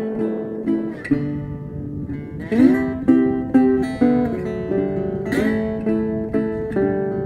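Background music: an acoustic guitar picking notes, with a strummed chord about two and a half seconds in and another about five and a half seconds in.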